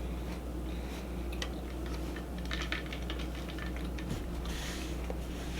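Faint handling noises at the table: scattered light clicks and short rustles over a low steady hum.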